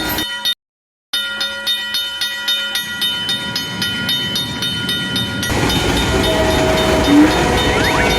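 Railroad level-crossing warning bell clanging at a rapid, even beat, about four strokes a second, after a brief cut to silence. About five and a half seconds in it gives way to the sound of a passing train with a sustained horn-like tone.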